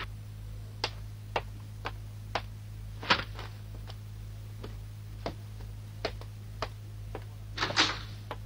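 A run of light ticks or taps about twice a second, slightly uneven, over a steady low hum.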